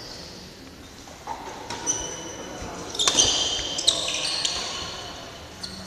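Badminton play: sneakers squeaking briefly on the court floor and sharp racket hits on the shuttlecock, the busiest stretch about three to four seconds in.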